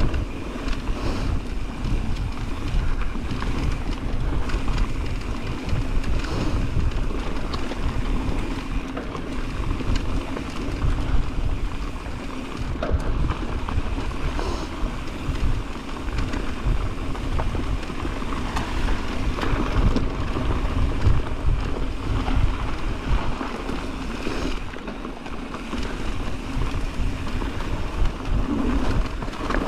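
Mountain bike riding down a dirt singletrack trail: a steady rumble of wind buffeting the microphone and knobby tyres rolling over dirt, with frequent small knocks and rattles from the bike.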